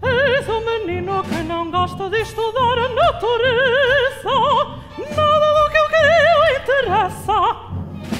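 A high solo operatic voice singing a run of phrases with wide vibrato, over live orchestral accompaniment.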